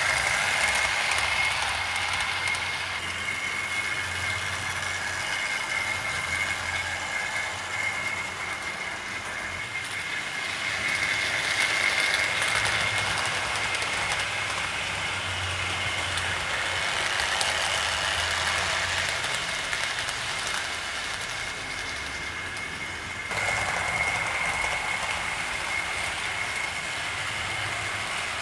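OO gauge model locomotives running on a layout: a steady high electric motor whine over the rush of metal wheels on the track, swelling and easing as trains pass close, with an abrupt change in the sound about 23 seconds in.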